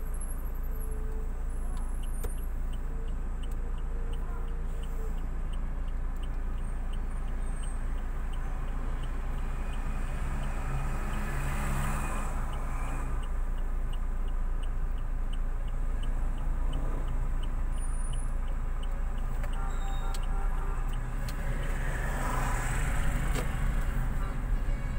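Inside a car in traffic: steady low engine and road rumble, with a turn-signal indicator ticking evenly about twice a second through most of it. Traffic noise outside swells about halfway through and again near the end.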